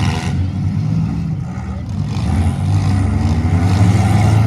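Demolition derby car engines running and revving, a loud low drone that dips briefly and then grows louder near the end.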